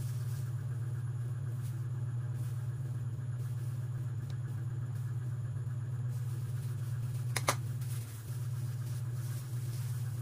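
Steady low mechanical hum, unchanging throughout, with one sharp click about seven seconds in.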